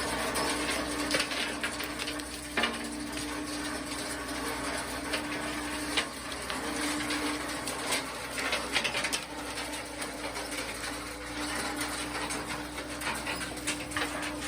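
Machinery running with a steady hum and irregular clicks, knocks and rattles.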